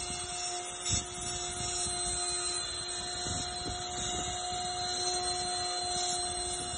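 CNC router spindle running with a steady whine while its bit cuts star outlines into a wooden cylinder turned on the machine's rotary axis. There is a brief louder knock about a second in.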